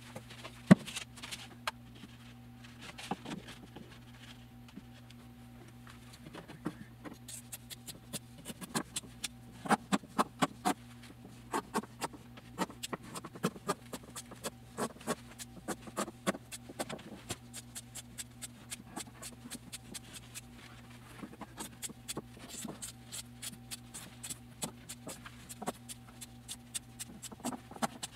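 Hands handling carbon fibre cloth and a wooden board core during an epoxy layup: irregular small taps, knocks and rustles, busiest in the middle and near the end, over a steady low hum.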